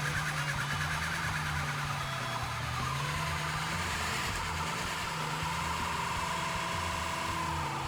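Small-block Ford V8 engine of a 1981 Ford Granada running hard, its engine speed rising and falling several times, with a steady rushing noise over it.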